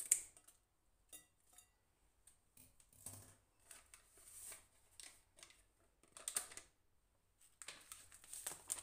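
A foil sachet of whipped-cream powder crinkling and rustling in short bursts as the powder is shaken out into a glass bowl.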